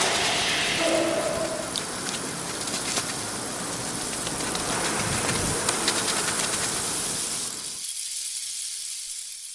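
A steady hiss of noise with scattered faint clicks and a few brief faint tones in the first second or so, fading out near the end.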